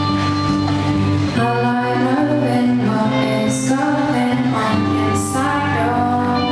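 Live recording of a pop song: a woman singing held, sliding notes over instrumental accompaniment.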